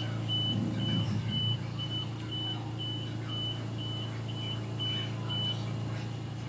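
A high electronic beep repeating about twice a second, stopping about five and a half seconds in, over a steady low hum.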